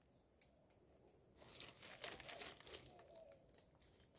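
Faint rustling and crackling, strongest from about a second and a half to three seconds in, with a few soft clicks.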